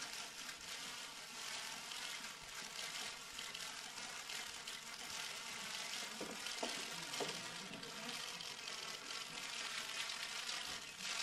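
Many press camera shutters clicking rapidly and continuously at once, a dense crackling clatter.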